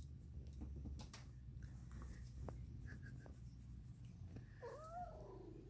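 Domestic cat purring, low and faint, with one short meow that rises and falls about five seconds in.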